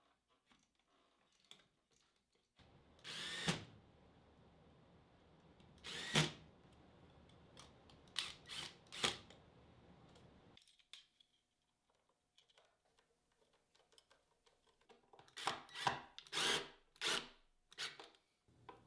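Power drill run in short bursts of about half a second: single bursts near three and six seconds in, three in quick succession around eight to nine seconds, then a rapid cluster near the end.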